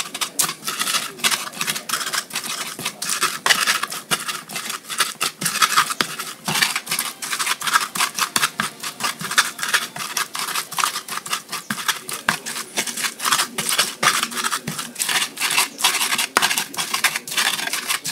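Ulekan pestle grinding and crushing fried chilies, shallots and garlic with salt and sugar in a cobek mortar: repeated scraping, crunching strokes as the sambal is pounded down.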